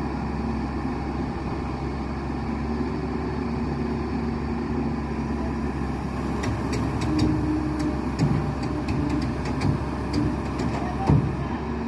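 JCB JS215 excavator's diesel engine running steadily. From about halfway, a quick run of sharp clicks and knocks, with a louder thump near the end.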